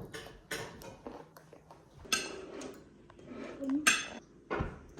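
Dishes and cutlery clinking and clattering, a run of sharp knocks with two louder, ringing metallic clinks about two and four seconds in.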